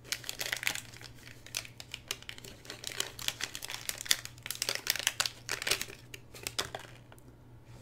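Thin plastic component bag crinkling and rustling in the hands as a small circuit board is worked out of it. Many quick, irregular crackles die down near the end.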